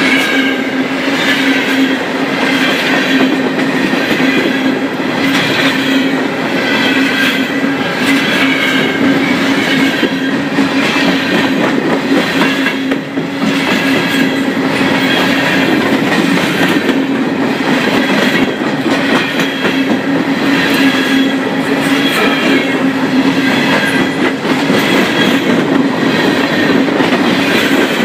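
Open-top freight cars of a CSX coal train rolling past close by: steady steel-wheel rumble on the rail with a rhythmic clickety-clack as the trucks pass, under a steady hum and a higher ringing that keeps swelling and fading.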